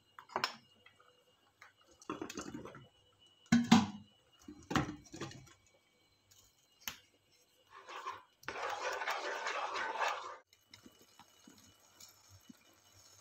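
Kitchen handling sounds of cooking in a pan: a few short scrapes and knocks in the first five seconds, then a steady hiss lasting about two seconds, then faint low noise.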